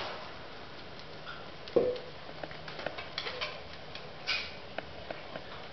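Small puppies and their mother moving about on a concrete floor and a wooden ramp: light, scattered clicks and patter of paws and claws, with one louder short sound about two seconds in.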